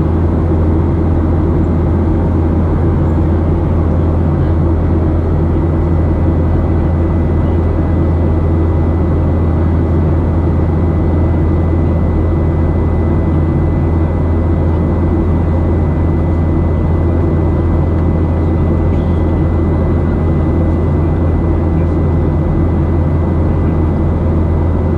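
Steady cabin noise inside a Boeing 737-700 in climb, its CFM56-7B engines running evenly. A deep hum sits under a rushing noise, with a thin high steady whine above it.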